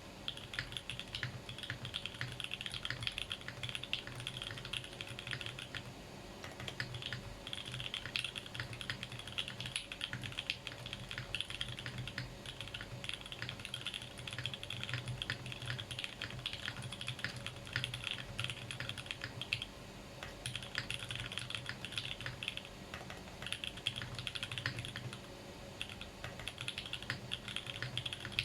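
Fast, continuous typing on a Think 6.5 v2 mechanical keyboard with linear switches (Alpaca springs, Durock POM stems) and GMK doubleshot ABS keycaps, in a case damped with plate and case foam. Dense key clicks with a low thock under them, with brief pauses about six seconds in and again near the end.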